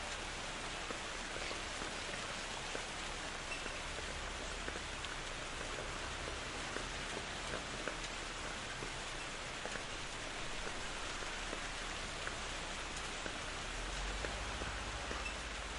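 Steady rain falling, with many small drops pattering on a surface.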